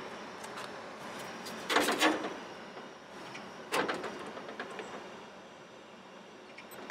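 A small steel key-locker door handled and banged shut: a rattling clatter about two seconds in, then a single sharp bang near four seconds as the door closes, followed by a few faint clicks from the latch and push-button combination lock.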